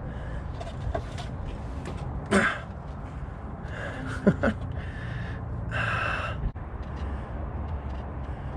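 A man's heavy breaths and a few short gasps as he strains at work under a truck, over a steady low rumble.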